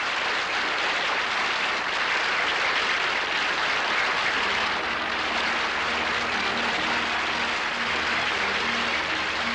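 Studio audience applauding steadily, with the orchestra starting to play softly underneath in the second half.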